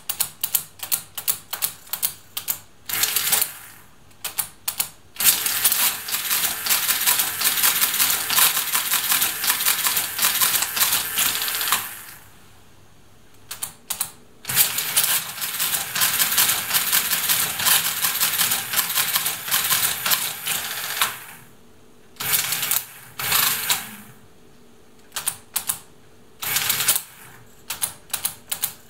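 SCM Hamann Automatic 505 electromechanical calculator doing a multiplication: a string of sharp key clicks as the numbers are entered, then the motor-driven mechanism runs in two long spells of rapid clattering, about seven seconds each, with shorter spells and more key clicks near the end.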